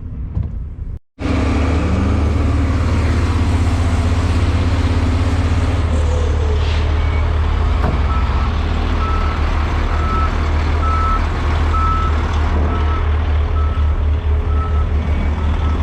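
Heavy truck engine running loudly and steadily. From about halfway through, a reversing alarm beeps about twice a second.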